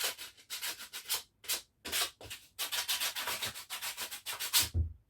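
Sandpaper rubbed by hand over a saw-cut piece of wood, sanding off splinters: short back-and-forth strokes that come faster past the middle and stop shortly before the end, with a low thump as they stop.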